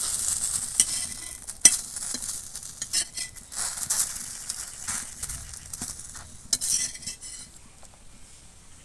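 Metal spatula scraping and tapping on a hot flat iron tawa as a thin crepe is folded and lifted off, with a light sizzle underneath. There is one sharp clink a little under two seconds in, and the sound dies down near the end.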